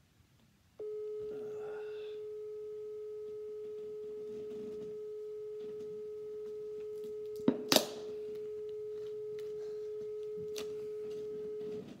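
A telephone line's steady single-pitched electronic tone, starting about a second in and cutting off just before the end, with two sharp clicks about three-quarters of the way through.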